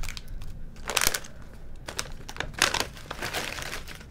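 Foil-and-plastic candy wrappers crinkling irregularly as a hand sifts through a pile of wrapped candies, busiest about a second in and again from about two and a half to three and a half seconds in.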